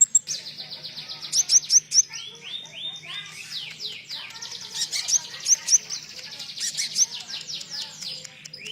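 Konin songbird singing a fast, continuous chattering song of rapid high down-slurred chirps, with a run of lower arching notes about two seconds in; a singing bird used to teach cage birds its song (with cililin-style phrases).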